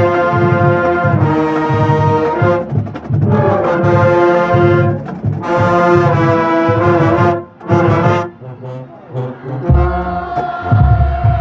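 Marching band music: the brass section plays loud held chords over a steady drum beat, breaking off briefly a few times. In the last seconds heavy bass drum hits come in under a sustained brass chord.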